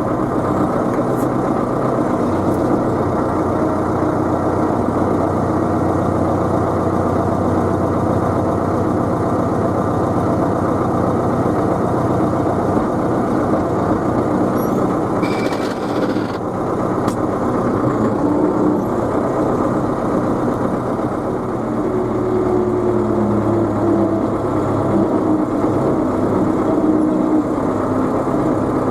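Tractor engine running steadily. A short, higher-pitched sound cuts in briefly about fifteen seconds in.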